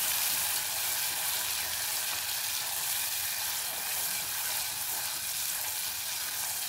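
Green masala paste sizzling steadily in hot ghee in a clay pot as it is stirred with a spatula, being sautéed to cook off its raw smell.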